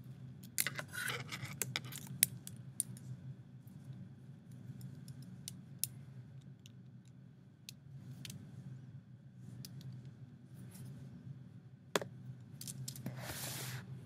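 Plastic clicking and clattering of Lego pieces as a Lego butterfly knife's handles are flipped: a quick run of clacks in the first few seconds, then scattered single clicks. A rustling handling noise comes near the end, over a steady low hum.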